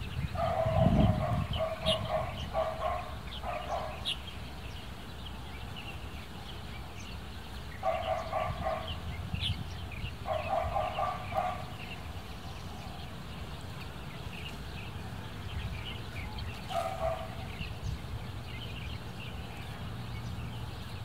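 An animal calling in four short runs of rapid, repeated pitched calls. There is a low rumble about a second in and faint high chirps throughout.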